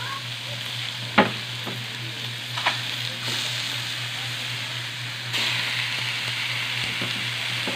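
Cubes of salt-and-pepper-marinated pork sizzling in a hot wok as they begin to brown, with a sharp knock about a second in and a lighter one soon after. The sizzle gets louder about five seconds in.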